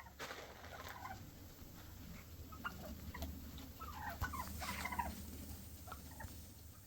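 Wild turkeys calling, a scatter of short calls that bunch together in the middle, over a low steady rumble.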